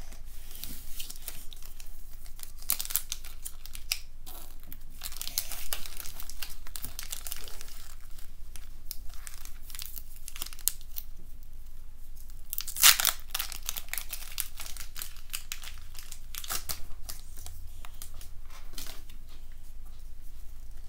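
Foil wrapper of a Pokémon card booster pack crinkling and tearing as it is handled and opened, in irregular crackles with one sharp loud rip about 13 seconds in.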